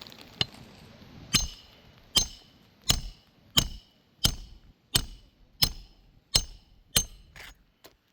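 Hammer driving roofing nails into roof shingles by hand: about ten sharp, ringing strikes at a steady pace of roughly one and a half a second, the last two lighter as the nail seats.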